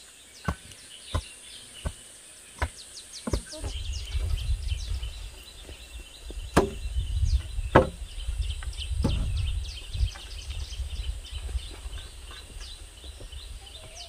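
A wooden fence post being pounded into the ground: evenly spaced dull knocks, about one every 0.7 s. About four seconds in, a rough low rumble of wind on the microphone takes over, with a few sharper knocks.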